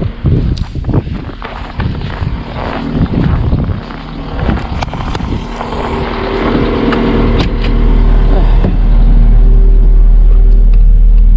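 Cat 906M compact wheel loader's diesel engine running, with scattered knocks and rattles. The engine grows louder over the second half and holds at a heavy, steady level near the end.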